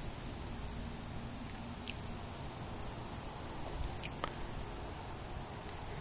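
Insects trilling in one steady, unbroken high-pitched tone, typical of late-summer crickets.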